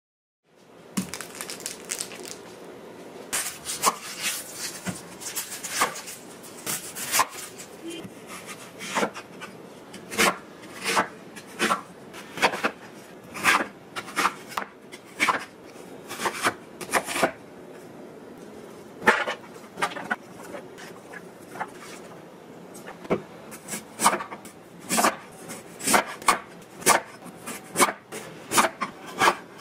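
A large kitchen knife slicing an onion and then a carrot on a wooden cutting board, the blade knocking the board in quick, irregular strokes.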